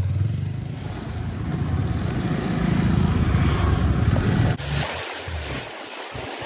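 Motorcycle engine running as the bike rides off, with wind rushing over the microphone. About four and a half seconds in, the sound cuts abruptly to quieter, gusty wind buffeting from riding.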